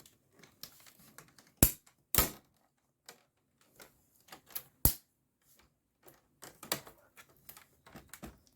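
Sharp plastic clicks and taps from handling a laptop's plastic screen bezel and lid as the bezel is fitted back on. There are three loud clicks in the first five seconds, then a run of lighter taps near the end.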